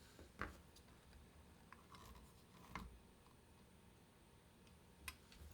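Near silence with three faint clicks or taps, from small watch parts and tools being handled at a watchmaker's bench.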